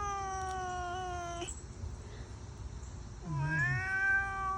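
A scared cat giving long, steady, owl-like hooting yowls, the alarm call of a frightened cat. One cry holds until about a second and a half in, and a second begins near the three-second mark with a short low growl at its start.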